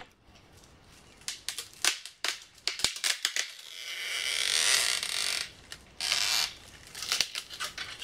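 Dead wood cracking and snapping as it is pulled and broken by hand. Several sharp cracks are followed by a long rush of scraping branches and rustling twigs as the wood comes down, then more snaps near the end.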